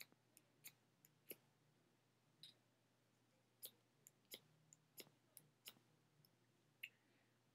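Small fire steel (ferro rod) being struck over and over: about fifteen faint, short, sharp scrapes at an uneven pace. The rod is throwing few or no sparks.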